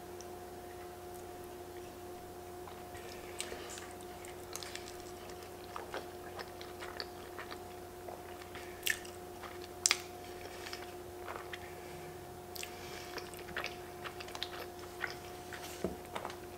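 A person chewing and slurping creamy fettuccine Alfredo, with scattered short wet clicks and smacks. A faint steady hum runs underneath.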